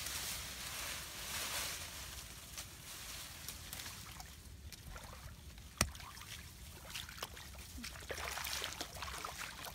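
A metal digging tool scraping and prying into wet, clayey soil to open up a burrow, with soil crumbling and dry grass rustling. There is a single sharp knock about six seconds in, and the scraping grows busier near the end.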